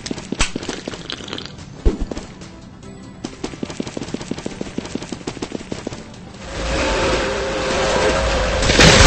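Rapid irregular clicking and crackling, then about six seconds in a vacuum cleaner starts up: a loud, steady rushing noise with an even hum that grows louder toward the end.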